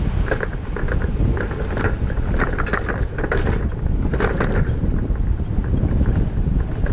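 Ford shuttle bus under way, heard from inside: a steady low rumble of engine and road with frequent light rattles and clicks from the body and fittings.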